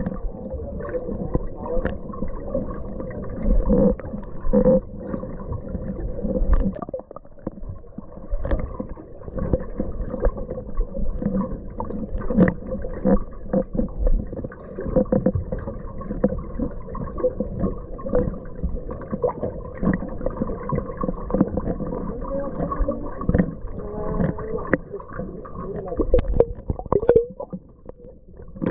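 Underwater sound picked up by a submerged action camera: a muffled, steady rumble with many irregular clicks and knocks.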